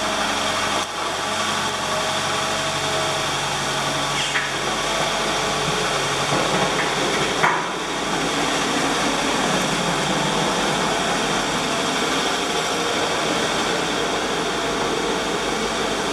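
ATLAS hydraulic excavator's diesel engine running steadily under load while it loads a dump truck, with two sharp knocks of material landing, the louder one about seven seconds in as the bucket is over the truck.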